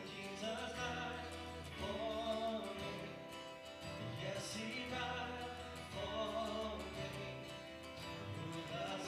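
Church worship song: a small band with guitar accompanying voices singing together.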